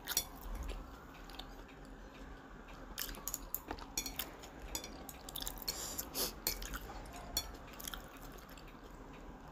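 Quiet close-up chewing and wet mouth sounds of someone eating spicy instant noodles and a boiled egg, with scattered short clicks, some from plastic chopsticks touching a ceramic plate.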